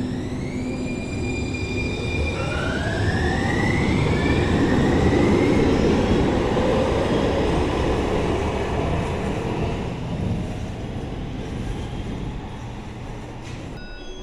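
Muni Metro light-rail train pulling out of an underground station: its traction motors whine upward in pitch as it accelerates, over a loud rumble of wheels on rail that peaks about halfway through and then fades.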